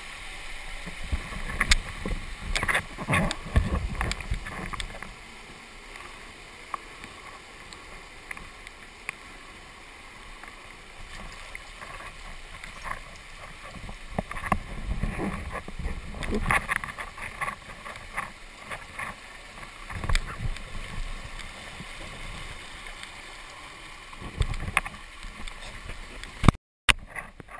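Water splashing and sloshing close to the microphone as a canyoner wades and swims through a gorge pool, in irregular bursts with scattered knocks against the camera. A sharp knock and a brief dropout come near the end.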